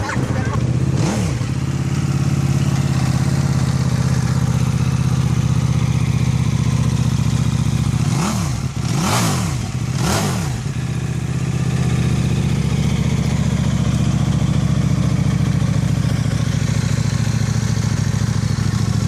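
Motorcycle engine idling steadily, blipped once about a second in, then given three quick throttle blips in a row around the middle before settling back to idle.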